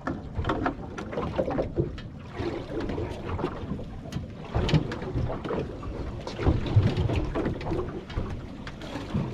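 Low wind rumble and water noise on a small fishing boat, with irregular knocks and clunks of handling on board.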